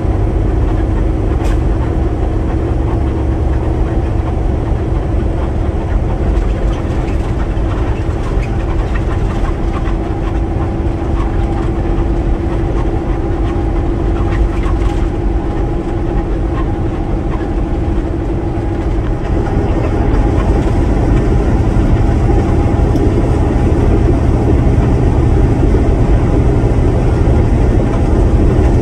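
Steady rumble of a truck's engine and road noise heard inside the cab while driving. About two-thirds of the way through, the steady drone drops away and the rumble grows slightly louder.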